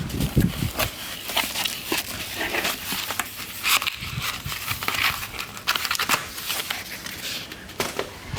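Packaging being handled and unwrapped: an irregular run of crinkling and rustling with scattered small clicks and knocks.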